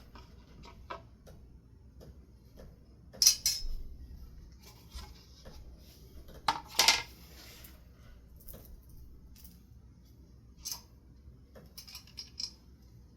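Metal ceiling fan parts clinking and clicking as they are handled during disassembly, with louder clanks about three and seven seconds in.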